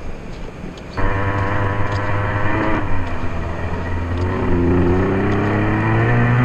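Traxxas Revo nitro RC truck's two-stroke glow engine running, heard through a camera mounted on the truck. It cuts in suddenly about a second in and rises in pitch near the end as the throttle opens, after a second of rushing noise.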